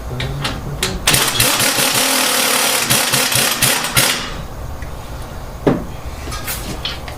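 A power impact wrench runs in one burst of about three seconds, starting about a second in, followed by a single knock a little later.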